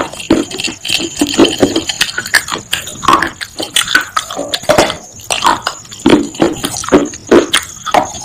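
Close-miked crunching and chewing in the mouth, biting through pieces of baked clay pot: a quick, irregular run of sharp crisp crunches with wetter chewing between them.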